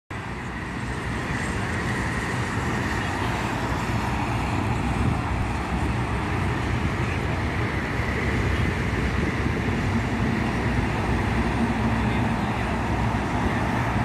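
Steady road traffic noise from a busy highway. A deeper engine note joins for a few seconds past the middle.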